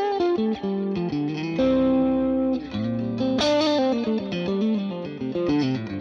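Electric guitar playing single-note lead phrases, with a few held notes, through a Fractal Audio FM9 preset modelling a Mesa Boogie Lone Star amp with EL34 power tubes, a light overdrive and an Aurora (Keeley Halo-style) delay.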